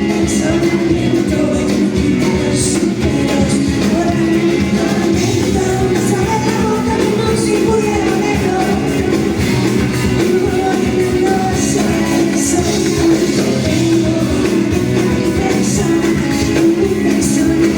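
Live band playing a rock-leaning song with a woman singing the lead vocal.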